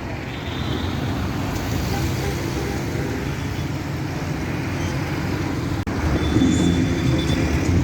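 Road traffic noise: motor vehicles running steadily in the street, with a brief break about six seconds in.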